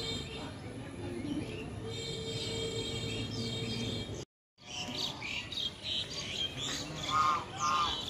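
Background music with sustained tones for the first half, cut off suddenly by a brief dropout. Then small birds chirping and twittering, with two short, lower call notes close together near the end.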